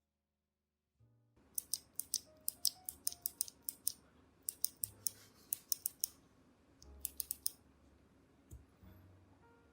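Keys pressed on a GK61 mechanical keyboard with Kailh Speed Pink clicky switches. A fast run of sharp clicks starts about a second and a half in, stops around six seconds, and four more come near seven seconds. Soft background music plays underneath.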